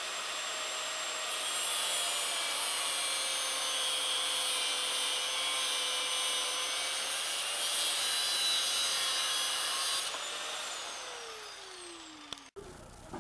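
Angle grinder with a cut-off disc running with a steady whine and cutting through a steel bar clamped in a vise, the hiss of the cut riding over the motor. About ten seconds in, the cut ends and the grinder is switched off, its whine falling as the disc spins down.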